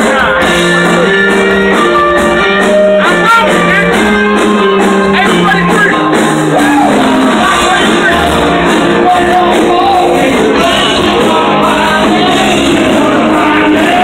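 Loud music with a singing voice, with steady held notes that change pitch step by step.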